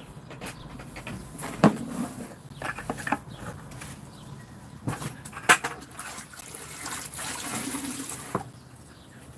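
Water splashing and running while concrete residue is washed off freshly laid pavers, with a louder rush of water around seven to eight seconds in. Two sharp knocks stand out, about one and a half and five and a half seconds in.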